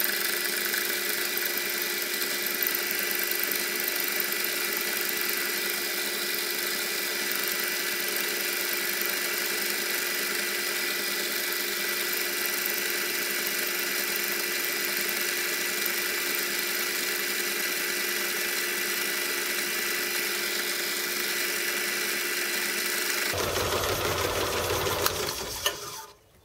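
Home-built belt-driven metal lathe running steadily with a constant whine while its cutter takes a fairly heavy cut in cast aluminium. The machine noise cuts out near the end.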